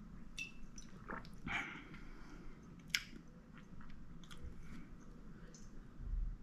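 A person drinking from a glass: quiet sips and swallows with small mouth clicks, and one sharp click about three seconds in.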